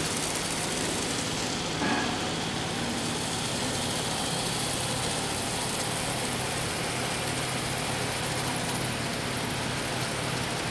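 A steady low machine hum under an even hiss, with one short bump about two seconds in.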